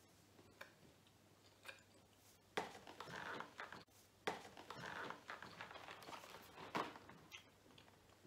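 Cardboard advent calendar box being handled: a few faint clicks, then from about two and a half seconds in, stretches of scraping and rustling with sharp taps on the cardboard.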